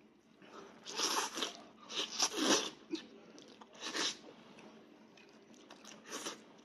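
Biting and chewing into a cooked sheep's head, crunching and tearing in about four bursts a second or two apart.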